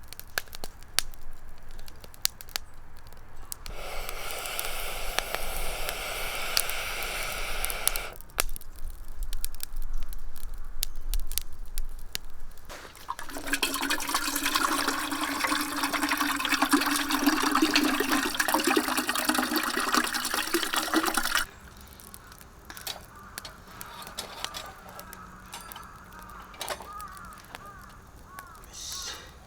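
Water running in two spells, one of about four seconds and a longer one of about eight seconds that cuts off suddenly, with scattered small clicks and knocks around them.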